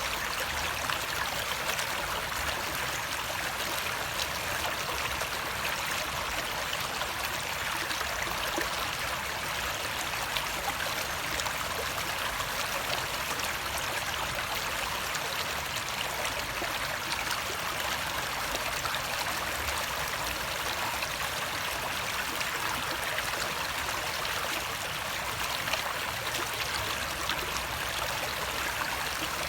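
Water flowing steadily: an even, unbroken rush of running water.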